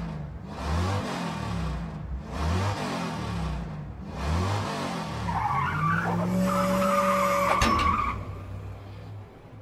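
Cartoon-style car sound effects: an engine revving up and down several times with skidding noise, then a squealing tone from about five to eight seconds in. The sound fades near the end.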